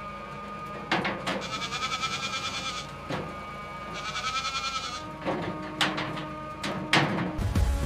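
Goats bleating: two long, wavering calls, with several sharp knocks around them.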